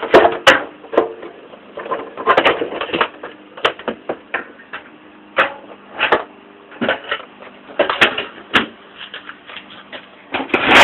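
Irregular knocks, clicks and rustling of tools and parts being handled and put away, with a faint steady hum underneath.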